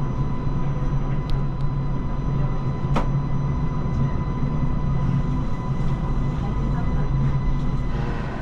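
Cabin sound of a Linimo maglev train running: a steady low rumble and hum with a thin constant whine, and a single sharp click about three seconds in.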